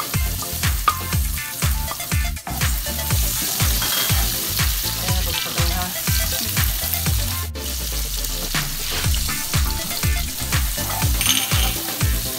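Diced onion sizzling in hot olive oil in a frying pan, stirred and pushed around with a spatula. Background music with a steady beat plays underneath.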